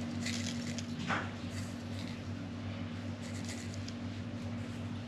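Faint soft rustles and light taps of coriander seeds being added to jars of packed cucumbers, over a steady low hum.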